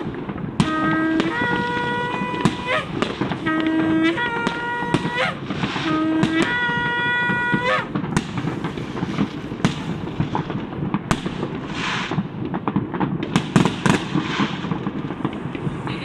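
Shofar blown in three blasts, each starting on a short low note and jumping up to a longer held higher note, over fireworks crackling and banging. After the third blast, about eight seconds in, only the fireworks go on, with sharp pops and crackles.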